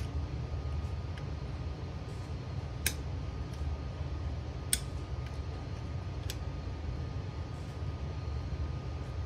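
A few sharp metallic clicks, three of them a second or two apart, as a bolt-action rifle's spring-loaded trigger guard assembly is squeezed and pressed into its wooden stock, over a steady low hum.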